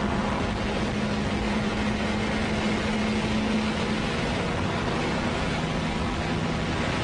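Car engine and road noise heard from inside the cabin while driving at highway speed: a steady noise with an engine hum that drops slightly in pitch about four seconds in.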